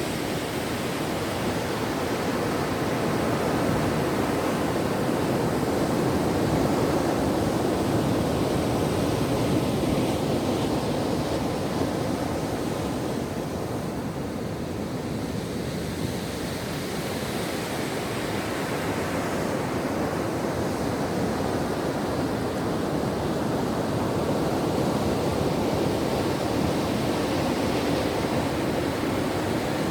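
Ocean waves washing onto a shore in a steady, rushing surf that swells and eases slowly, with a softer lull about halfway through.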